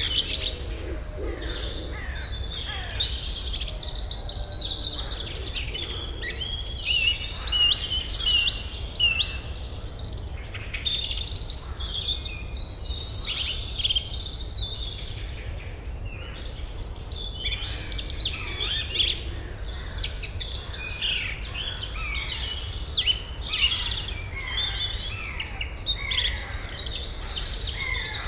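A chorus of many birds singing and calling at once: dense overlapping chirps and trills, over a steady low rumble.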